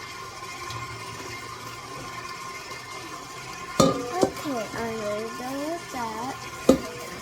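Kitchen handling sounds over a steady faint hum: sharp knocks and clinks of a bowl and utensils about four seconds in and again near the end. Between them a voice makes a wordless sound for about two seconds, its pitch dipping and rising.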